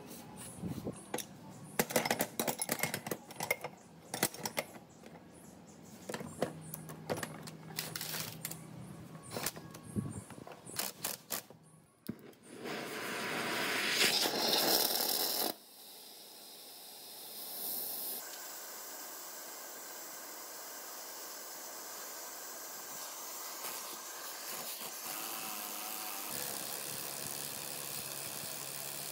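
Metal clinks and knocks of tools being handled for the first dozen seconds. Then a gas torch is lit and its flame hisses steadily as it heats a rusted pulley on an electric motor shaft, loudest for the first three seconds or so.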